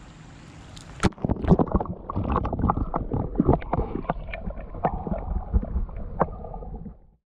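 Running stream water, then, about a second in, an action camera's microphone goes under the water: muffled gurgling and bubbling with scattered sharp knocks of water against the housing. It cuts off suddenly near the end.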